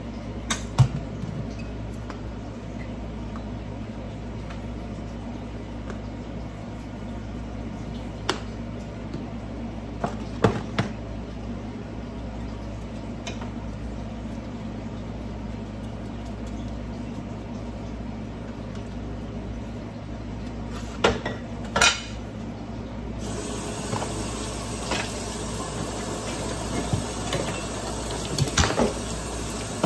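Kitchen utensils, glass bowls and jars clinking and knocking against dishes and pots, a few sharp clinks spread out over a steady low hum. About three quarters of the way in, a steady hiss starts and continues.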